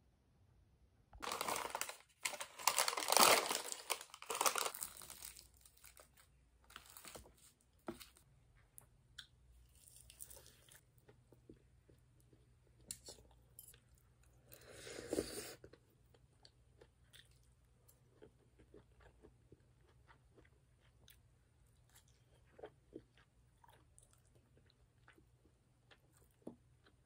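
Plastic packet of seasoned laver crinkling and tearing loudly for a few seconds near the start, with a second, shorter rustle about fifteen seconds in. In between come soft chewing and scattered light clicks of chopsticks and spoon on the dishes.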